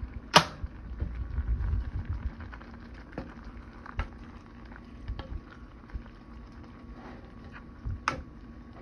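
A black cooking spoon stirring thick, creamy pasta in a pot, knocking sharply against the pot about half a second in and again near the end, with lighter taps in between.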